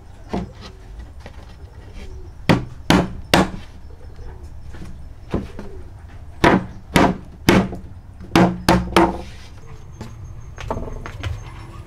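Sharp knocks on wooden boards as the dovetailed corners of a wooden box frame are knocked together, mostly in quick runs of three about half a second apart, plus a few single knocks.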